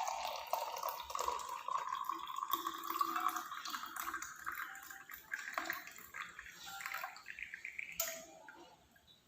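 Hot tea poured from a pan through a tea strainer into a cup: a steady splashing trickle that rises in pitch, then stops shortly before the end.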